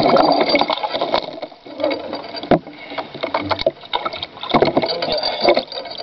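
Water sloshing and slapping against a small R/C fishing boat's hull, with irregular knocks and bumps of the hull being handled. It is picked up close by the camera built into the boat.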